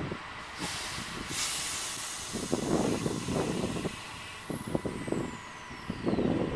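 Loaded log truck's diesel engine running with irregular knocks and rattles. An air-brake hiss comes about a second in, and a thin high whine falls in pitch through the second half.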